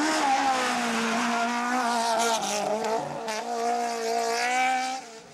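Rally car engine held at high revs as the car drives through a bend, with a brief lift about three seconds in before it pulls hard again. The sound drops off sharply near the end.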